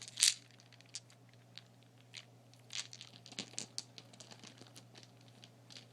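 Plastic hair bobbles, elastic ties with bead ends, clicking and rattling against each other as they are handled: scattered sharp clicks, the loudest about a third of a second in and a small flurry around the middle.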